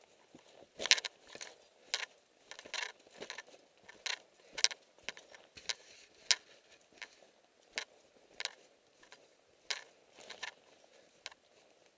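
Footsteps crunching through snow at a steady walking pace, about one step every half second or so.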